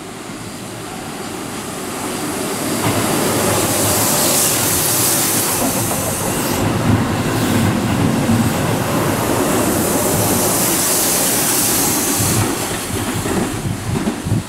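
Keihan 8000-series limited express train passing through the station without stopping. The sound builds over the first few seconds and stays loud for about ten seconds as the cars run by, then falls away near the end.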